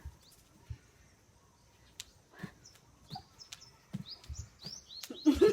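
Small birds chirping, a run of short high chirps that grows busier toward the end, over faint scattered clicks. Just before the end a loud wavering vocal sound breaks in.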